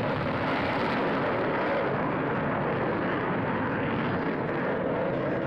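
Military jet flying past overhead: a loud, steady jet noise.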